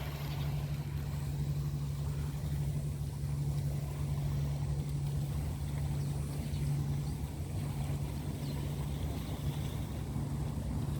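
An engine running steadily with an even, low drone that holds the same pitch throughout.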